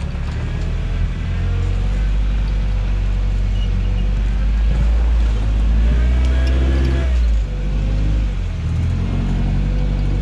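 Toyota pickup's engine running as it crawls a trail, with a steady low rumble; the revs climb about halfway through and ease off again.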